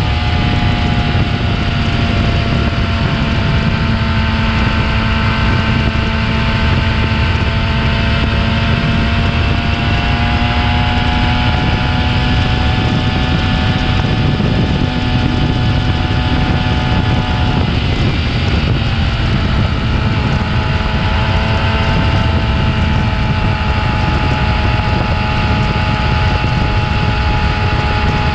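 Stock-exhaust Yamaha YZF-R6 inline-four engine running steadily, its pitch sagging slightly and then coming back up, with heavy wind noise on the microphone.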